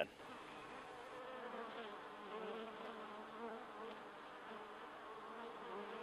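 Honeybees buzzing at an opened hive: a faint, steady hum with a slightly wavering pitch.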